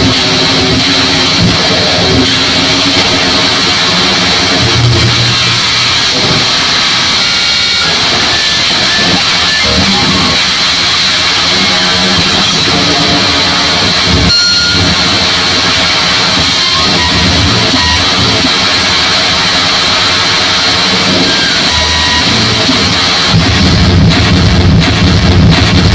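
Harsh digital noise from a live cut-up set: a loud, dense wall of distorted noise over the whole range with shifting held tones. About 23 seconds in it cuts abruptly to a louder, bass-heavy block.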